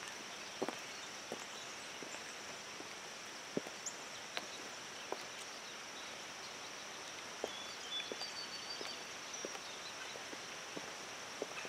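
High-heeled boots clicking on wet asphalt, single steps at uneven intervals, over a steady hiss of rain.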